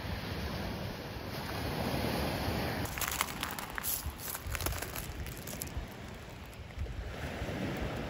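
Gentle surf and wind buffeting the microphone, with a brief run of sharp clicks and crunches of loose seashells about three seconds in, lasting a couple of seconds.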